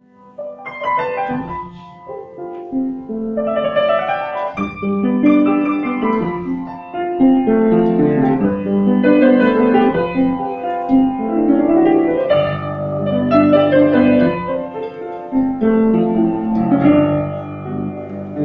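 Piano playing a slow jazz ballad, full chords under a melody, starting softly and growing fuller after the first few seconds.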